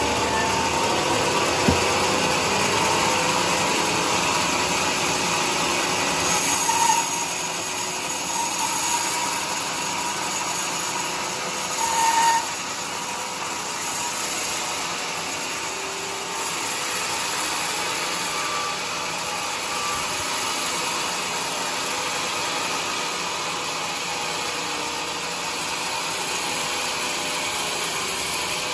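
Band sawmill blade cutting lengthwise through a large teak log, a steady sawing noise of the blade in the wood and the mill running, with two brief louder spells about 7 and 12 seconds in.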